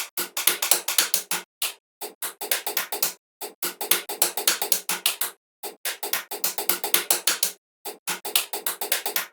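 Background music with a fast, clicky percussive beat that stops dead for brief breaks several times.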